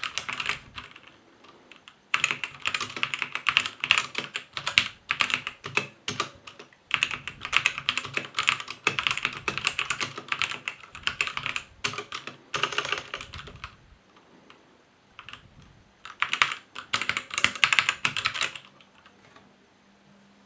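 Typing on a Krom Kernel TKL mechanical keyboard with Outemu Red linear switches. The keys clack in fast runs in three main bursts, with a few single key presses between them, and stop a couple of seconds before the end.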